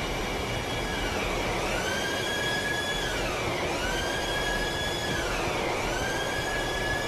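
Steady machinery din in the Queen Mary 2's engine room, around its large diesel generator engines, with a tone that rises, holds and falls again about every two seconds.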